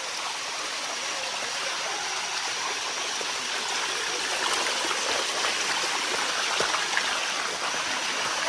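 Water of the Bua Tong (Sticky) Waterfall running over its rocks: a steady rush of shallow cascading water, a little louder from about halfway through, with small splashes.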